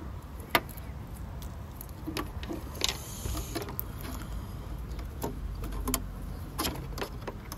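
Irregular light clicks and metal clinks of hand tools and engine parts being handled, with a brief scraping hiss about three seconds in.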